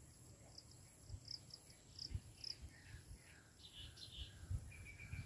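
Small birds chirping faintly: a quick run of short high chirps, then lower falling and rising calls, over a steady high insect-like drone and occasional low bumps.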